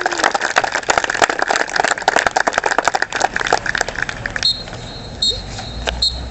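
Crowd cheering and clapping, which falls away about two-thirds of the way through, when short, high whistle blasts sound.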